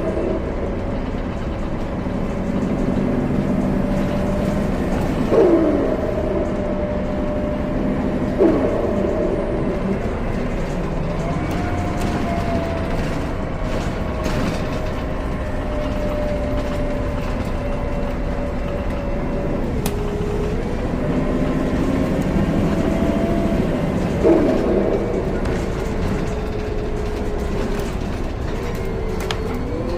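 2014 Gillig Low Floor BRT Plus CNG transit bus running, with a steady low rumble and a drivetrain whine that drops sharply in pitch about four times, each drop with a brief surge in loudness.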